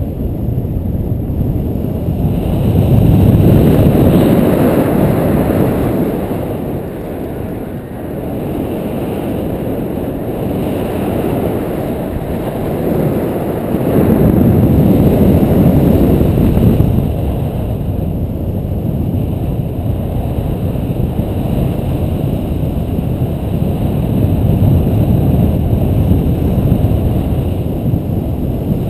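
Wind from the paraglider's flight buffeting the pole-mounted action camera's microphone: a steady low rush that swells louder twice, a few seconds in and again about halfway through.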